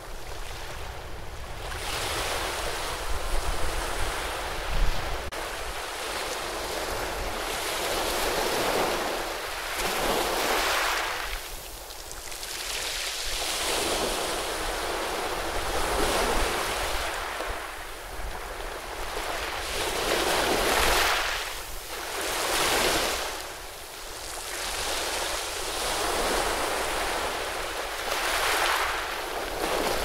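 Ocean surf breaking and washing in over a rocky shore, swelling and easing every two to three seconds, with a brief louder crash about five seconds in.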